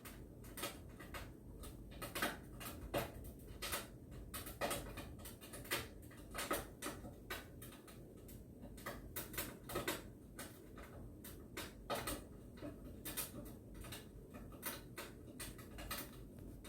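Crackling log fire played through a TV speaker: irregular snaps and pops, several a second, over a low steady rumble.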